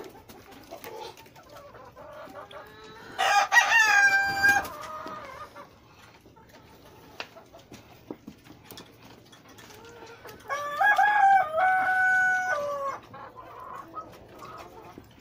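A rooster crowing twice: a shorter crow about three seconds in and a longer one of about two and a half seconds near the end. Hens cluck faintly in between.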